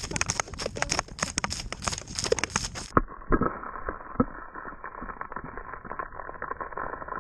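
Thin ice cracking under a person's boots as they stand on it: rapid sharp snaps and crackles as the ice fractures around the feet, a sign that it is too thin to bear their weight. About three seconds in the sound turns duller and the cracks come more sparsely.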